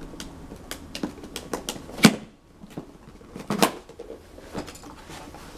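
Small cardboard box being opened and its inner packaging slid out by hand: a scatter of light taps and clicks, with two sharper knocks about two seconds and three and a half seconds in.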